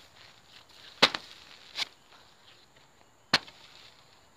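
Homemade pipe-ring mulch hole punch being driven through plastic mulch film into the soil: two sharp hits about two seconds apart, with a softer one between them.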